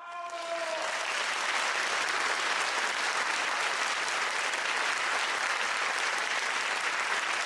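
Applause, a steady dense clapping over title cards, opening with a brief falling note in the first second.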